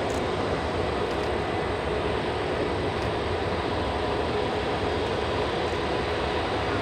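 Jet engines of an Airbus A380-841, its Rolls-Royce Trent 900 turbofans at taxi thrust: a steady rumble and hiss with a faint steady whine.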